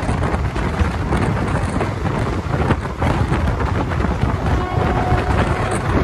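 Wind buffeting the microphone over the steady rumble of a passenger train running at high speed, heard from an open coach window.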